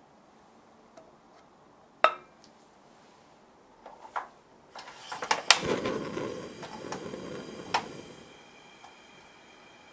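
Portable cassette gas stove being lit under a frying pan: a sharp knock about two seconds in, then the knob and piezo igniter click about five seconds in and the gas catches with a rush of noise that settles into a soft burner hiss.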